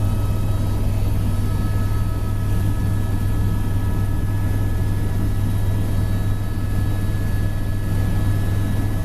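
Helicopter in flight: a steady engine and rotor drone with a strong low hum, holding even throughout.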